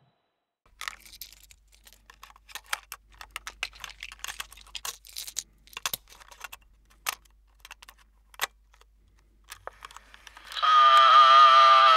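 Clear plastic microcassette cases clicking and clacking irregularly as they are handled and opened. Near the end a loud, steady buzzing tone starts.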